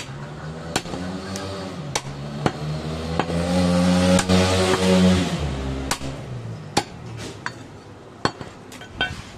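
Butcher's cleaver chopping goat meat and bone on a wooden stump chopping block, sharp irregular chops about once a second. Midway an engine swells up and fades away, the loudest sound for a couple of seconds.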